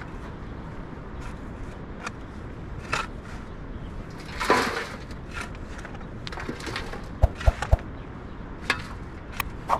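Shovel digging into dry, stony soil and earth and stones dropping into a metal wheelbarrow: a longer scrape about halfway through and a quick run of knocks later, over a steady hiss.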